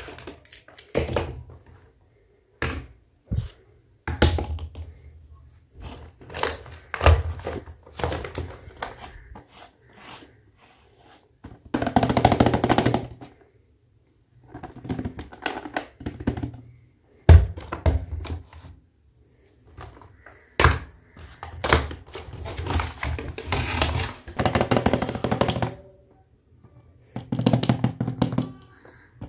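Small hard-plastic toy kitchen pieces and a plastic carry case being handled and set down: scattered clicks, taps and knocks with gaps between, and two longer stretches of clattering.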